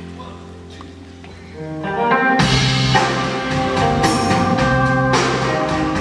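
Live band music: a soft passage of held low notes, then about two seconds in the full band comes in and the music gets much louder.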